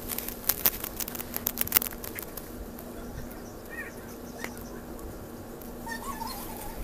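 Bearded dragon feeding close to the microphone: a quick run of sharp clicks and taps from its jaws and mouth in the first two seconds, then a few scattered ones, sped up by fast-forwarding.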